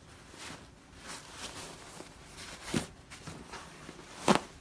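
Fabric rustling and scuffing as a pillow form is pushed into an envelope-style pillow cover, with a few short brushes and knocks, the sharpest near the end.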